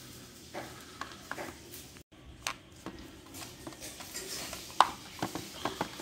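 Irregular clicks and light knocks of a DeWalt drill's plastic housing as the cover half is handled and fitted back on, with one sharper click about five seconds in.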